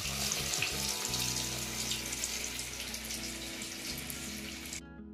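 Breadcrumb-coated sandwich sizzling in hot oil as it goes in to deep-fry: a steady sizzle with small crackles that cuts off suddenly near the end.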